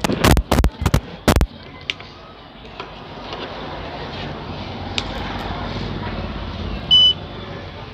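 Sharp clicks from handling the repaired hair straightener as it is set up for testing, then a short high electronic beep near the end as it powers on.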